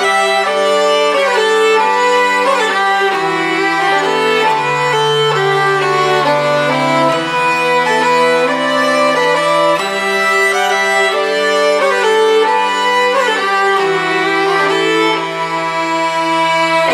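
Background instrumental music: a fiddle melody over long held low notes that change every few seconds.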